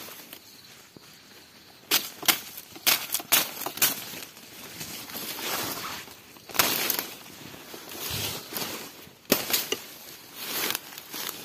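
Plant stems and leaves being broken and cut in undergrowth. A quick run of sharp snaps and cracks comes about two seconds in, a longer crunch in the middle and one more sharp crack near the end, among rustling leaves.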